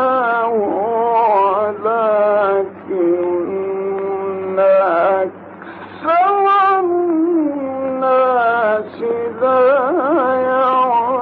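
A male reciter chants the Quran in the melodic mujawwad style, holding long ornamented notes that slide up and down, with a short pause between phrases about five seconds in. A steady low hum runs underneath.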